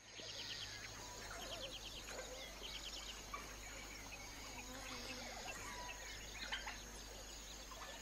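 Dawn chorus in the African bush: many birds chirping and trilling, over a steady high-pitched hum.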